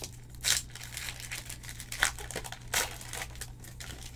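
Foil wrapper of a trading-card pack being opened by hand, crinkling with sharp crackles about half a second in, at two seconds and near three seconds, over a steady low hum.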